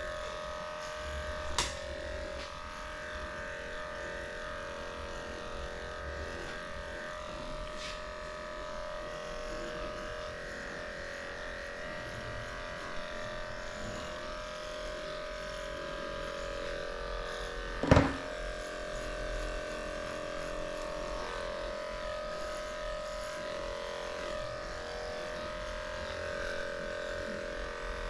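Electric dog grooming clipper running with a steady hum. A single sharp knock, the loudest sound, comes about eighteen seconds in, and a fainter click comes near the start.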